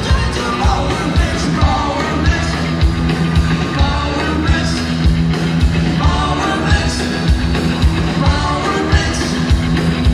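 Live rock band playing loudly through a PA: electric guitar and bass over a steady drum beat.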